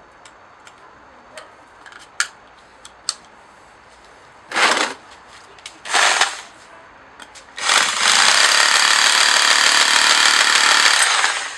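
Parkside PBH 1050 C3 rotary hammer: a few handling clicks, two short bursts of the motor, then a steady run of about three and a half seconds that stops near the end. This hammer drill has a periodic knocking defect.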